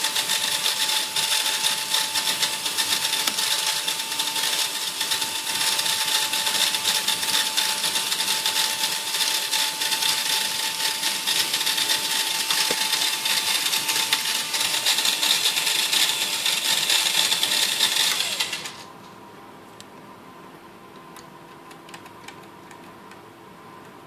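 Vacuum cleaner motor running with a steady hiss and a whine, cutting off suddenly about nineteen seconds in.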